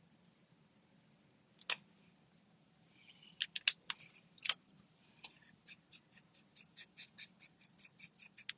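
Light, sharp clicks: a few scattered at first, then a quick, even run of about five clicks a second over the last few seconds.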